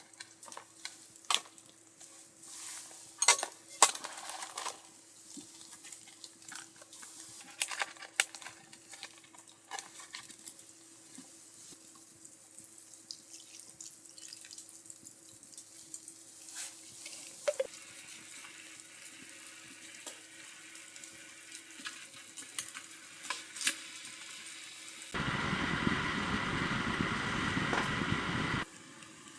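Camp cooking: utensils clinking and knocking against a pot or pan over a faint sizzle, with sharp clicks in the first several seconds and sparser ones after. Near the end comes a steady rush of liquid noise for about three and a half seconds, which starts and stops abruptly.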